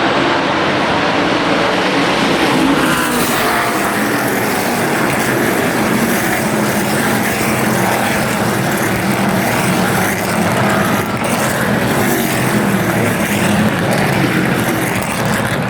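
NASCAR Truck Series race trucks' V8 engines running at racing speed. It is a loud, steady drone of several engines at once, with pitches rising and falling.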